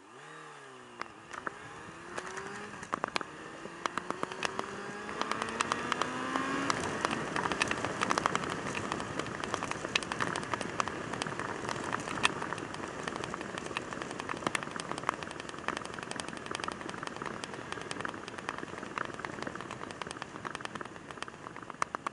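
Yamaha YZF600R Thundercat's inline-four engine pulling away, its pitch rising, dropping and rising again as it revs through the gears in the first several seconds. Then a steady rush of wind and road noise with many sharp ticks.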